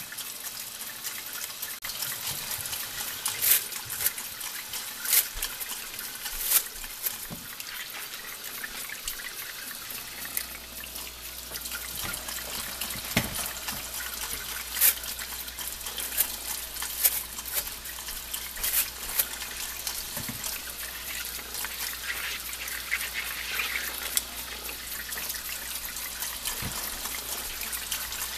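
Kitchen tap running into a sink full of shucked corn ears, with a round bristle desilking brush scrubbing the ears. Frequent sharp clicks and knocks come through the running water as the ears are handled.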